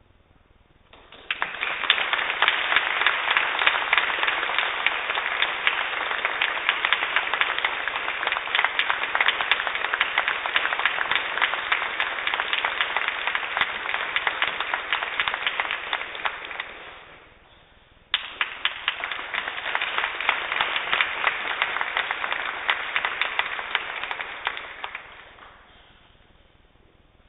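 Audience applauding after an organ piece. The clapping dies away, then a second round starts abruptly and fades out.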